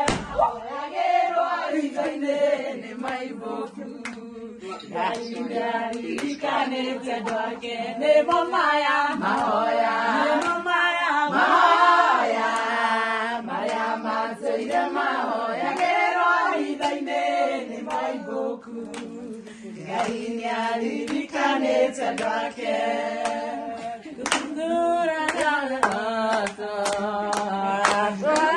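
A group of women singing together with hand clapping, the claps coming thicker near the end.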